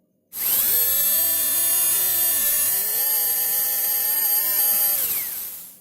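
Small 3000 rpm DC motor powered from a laptop's USB port, starting abruptly and running with a high electric whine whose pitch wavers slightly; a little after five seconds the power is cut and it winds down with a falling whine.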